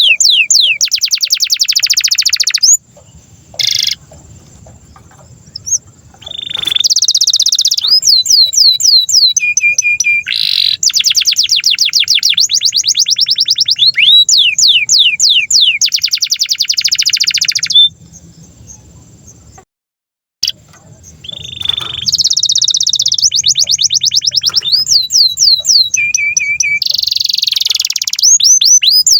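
Domestic canary singing a long, loud song of rapid rolls, each phrase a fast run of the same note repeated many times before switching to the next. The song breaks off twice for a few seconds, about three seconds in and again near 18 seconds, before resuming.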